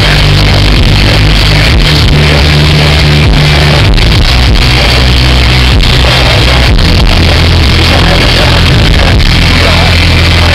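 Pop-rock band playing live on a festival stage, with a strong steady bass line and drum beat. The recording is very loud and overloaded, its level flat throughout.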